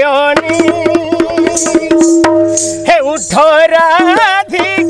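Sambalpuri danda song: a man sings, holding one long note for about two and a half seconds, then moving into a new phrase, over quick hand-drum strokes.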